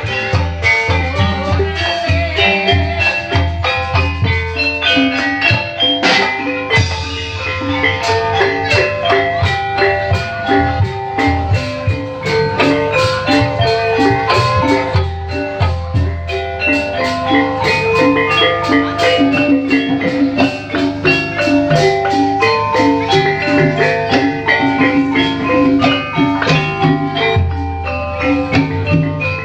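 Gamelan accompaniment for an ebeg horse dance: a dense, fast run of mallet-struck notes over a steady low drum.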